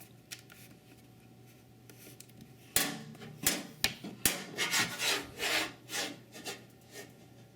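Handling noise: a few faint clicks, then from about three seconds in a string of short rubbing and scraping strokes, roughly two a second.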